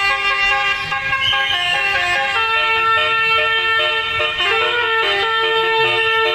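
Bus telolet horn, a set of air horns, playing a tune of held notes that step up and down in pitch.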